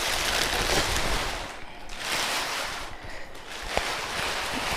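Rustling and scraping of packaging as a microwave oven is unboxed, coming in uneven swells, with a short click near the end.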